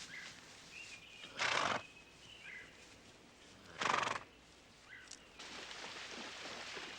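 A horse making two loud, short breathy sounds about two and a half seconds apart.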